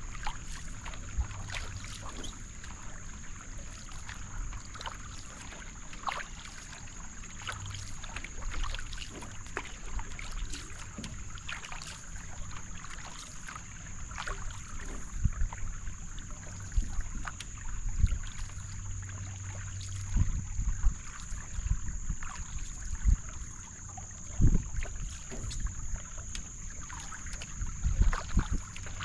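Canoe paddle strokes: the blade dipping and pulling through the water with drips, splashes and irregular light knocks, and water washing along a Wenonah J-210 racing canoe's hull, over a steady high-pitched drone.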